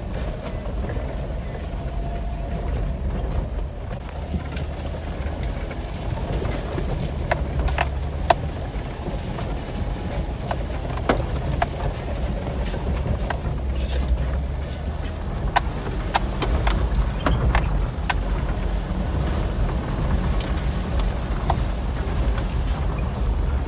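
Jeep driving over a rough off-road dirt track: a steady low engine and road rumble, with scattered sharp knocks and rattles from about six seconds in.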